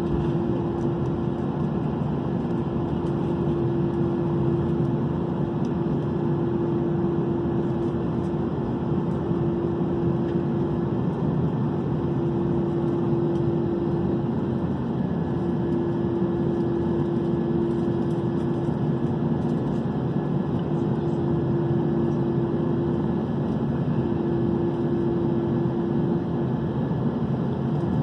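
Steady cabin noise of an Airbus A321-211 with its two CFM56 engines running at low power on the ground, an even rumble with a constant hum over it.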